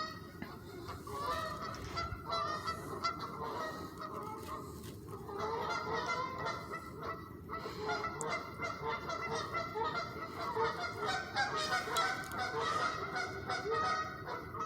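Geese honking over and over, many overlapping calls from several birds at once, going off like an alarm.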